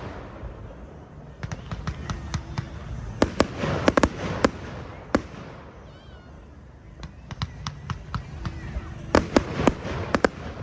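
Fireworks going off: sharp bangs and crackles in clusters, with a quieter stretch in the middle and the busiest bursts about four seconds in and again near the end.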